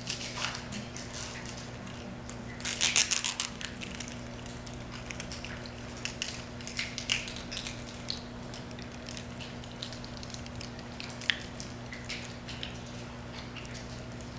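Steady low hum in a quiet room, with scattered small clicks and rustles and a short burst of crackling about three seconds in.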